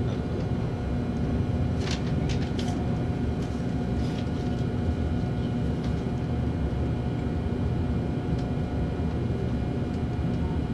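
Running noise inside a JR Shikoku 8000 series electric limited-express car: a steady low rumble of wheels on rail with a steady hum over it, and a few brief clicks about two seconds in.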